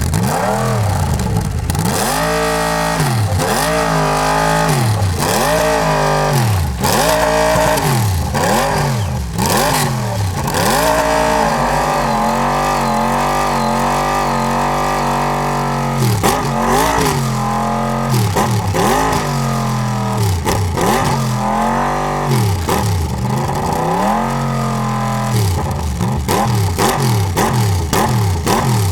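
1990 Mercedes-Sauber C11 Group C race car's twin-turbo V8 being warmed up: repeated sharp throttle blips about once a second, each rising and falling back. For a few seconds in the middle the revs are held up steadily before the blips resume, and it settles back near the end.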